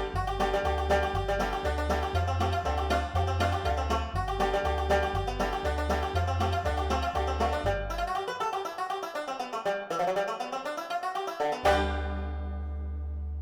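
Background music: a plucked-string tune over an alternating bass line. The bass drops out about eight seconds in, and the piece ends on a held chord near the end.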